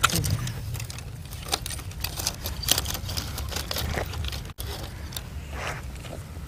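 Dry brush crackling and scraping, with scattered sharp clicks, over a low steady rumble.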